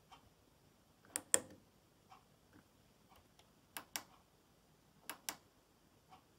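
Control-panel push-buttons of a Miele Professional PT 7186 XL tumble dryer being pressed by a fingertip: three quick double clicks, spaced a second or more apart, as the drying programme is set.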